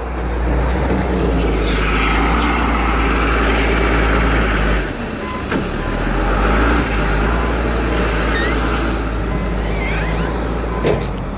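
Forklift engine running close by, deep and steady, dipping briefly about five seconds in, with a few short high squeaks near the end.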